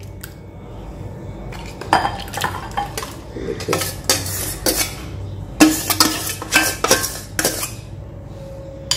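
A metal spoon clinking and scraping against a stainless steel bowl and a glass bowl as fish pieces are scooped and tipped across. The clinks start about two seconds in and come thick and irregular, several ringing briefly, then thin out near the end.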